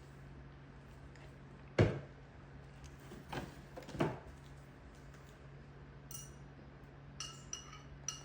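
Sharp knocks and clinks of hard objects, the loudest about two seconds in, then a few short ringing chinks near the end, over a steady low hum.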